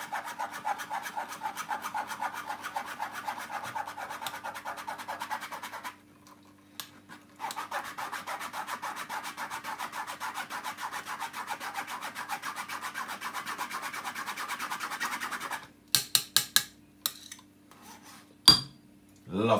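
Spoon scraping around the mesh of a metal strainer, pressing blended cucumber juice through it to strain out the fibre. It makes a quick, steady rasping rhythm with a short break about six seconds in, then a few sharp knocks near the end.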